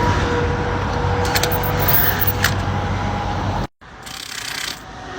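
Highway traffic passing close by: a steady rush of tyres and engines, with a faint held tone that sinks slightly in pitch and a few sharp clicks. The sound cuts off abruptly about two-thirds of the way through, and a quieter background follows.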